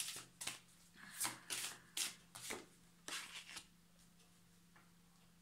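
A deck of Angel Therapy oracle cards being shuffled by hand: a quick run of short papery strokes for about three and a half seconds, then it stops.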